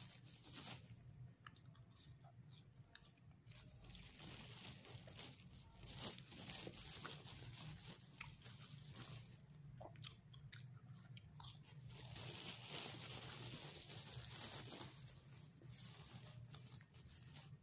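A person biting and chewing molen, crisp fried pastries, with faint crunching that comes and goes in stretches over a steady low hum.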